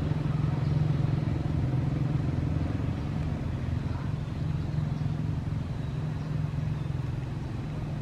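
Two small DC motors spinning plastic propellers on a homemade model boat, running with a steady hum that eases off slightly about three seconds in.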